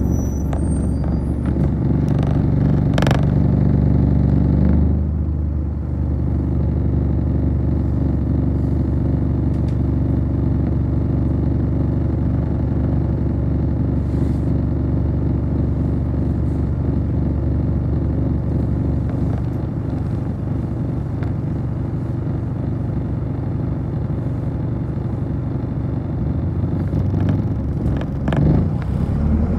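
Steady low running hum of a city bus standing at a stop, heard from inside the cabin. It is a little louder for the first five seconds or so, with one brief sharp sound about three seconds in.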